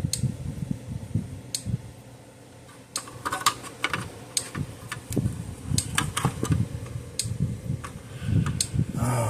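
Irregular sharp clicks and light knocks of a fence energizer's circuit board and plastic housing being handled and turned over, with a short lull about two seconds in.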